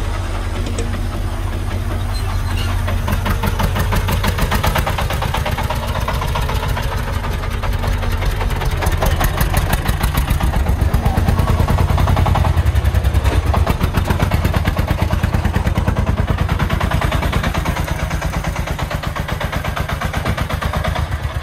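Engine of a loaded three-wheeled công nông sand truck chugging steadily as the truck pulls away and drives past. It grows louder toward the middle and fades a little near the end.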